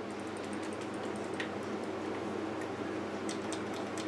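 Faint, irregular clicking of a handheld game controller's buttons and thumbsticks during play, thicker near the end, over a steady low hum.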